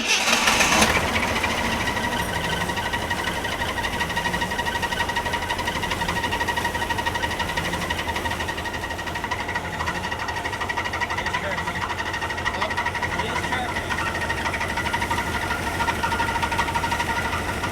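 Jeep Wrangler YJ engine running with a steady high-pitched squeal from the belt-driven front of the engine, after a new alternator has been fitted. The squeal is thought, without certainty, to come from the harmonic balancer.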